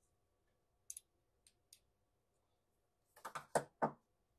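Light, scattered clicks and taps from handling a freshly loaded .45 Colt cartridge at a single-stage reloading press. A few faint ticks come in the first couple of seconds, and a quick cluster of sharper clicks comes about three seconds in.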